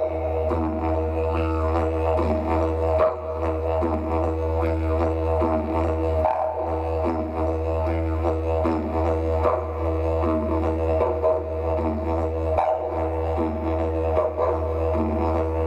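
Didgeridoo played as one continuous low drone, its overtones sweeping up and down in a wavering pattern. The drone dips briefly about three times.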